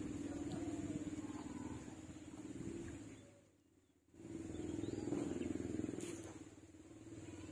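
Spinning fishing reel being wound against a hooked fish, a steady gear whirr that stops briefly about three and a half seconds in and then resumes.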